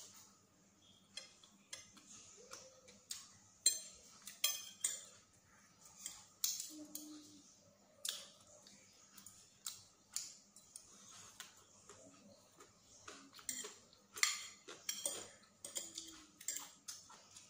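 Metal fork and spoon clinking and scraping against a ceramic plate while eating, in sharp irregular clicks.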